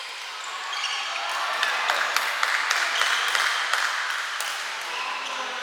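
Rain hissing on the roof over a badminton court, swelling louder in the middle, with a run of sharp taps and a few short squeaky tones over it.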